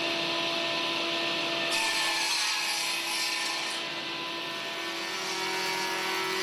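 Woodworking machine running in a joinery shop, working timber: a steady hum with a hiss of cutting that grows stronger between about two and four seconds in.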